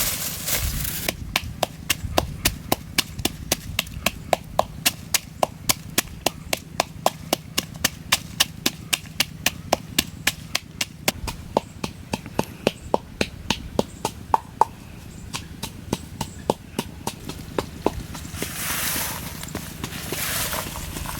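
A long run of even, sharp knocks, about three to four a second, which stops a few seconds before the end; then two short bursts of rustling hiss.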